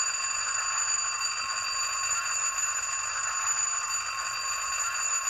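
An old-timey bell ringing steadily, a hidden sound effect played through the sound decoder and small speaker of a Rapido HO-scale U25B model diesel locomotive.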